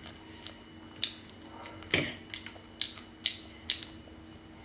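Thin plastic casing being peeled off a sausage by hand, crinkling and giving a few sharp crackles and clicks, the loudest about two seconds in.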